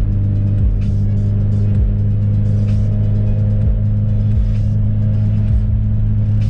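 Background music with a steady low bass and a regular beat.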